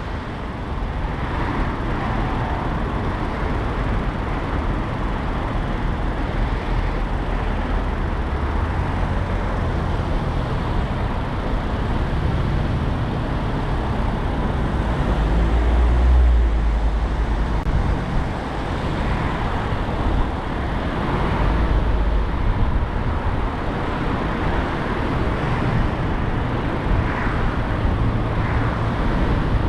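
Steady road and engine noise of a car driving in city traffic, a continuous low rumble that swells briefly about halfway through.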